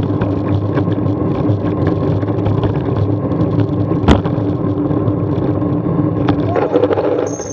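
Riding noise from a bicycle-mounted camera moving through queued traffic: tyre and wind noise over a steady drone of idling car and van engines alongside. A single sharp knock comes about four seconds in, and a high steady squeal starts near the end.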